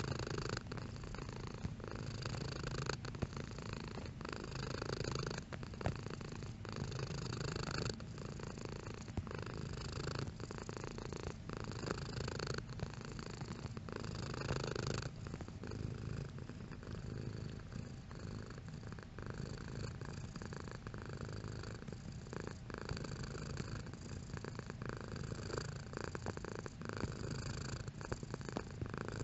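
Domestic cat purring steadily and continuously, a low rumble that swells and eases with its breathing, with small clicks scattered through it.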